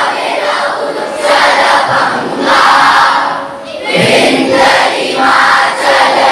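A crowd of schoolboys shouting and cheering together in repeated loud bursts about once a second.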